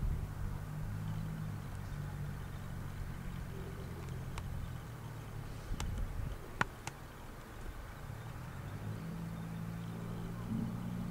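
Low, steady hum of an idling engine, with a few sharp clicks, the loudest about six and a half seconds in.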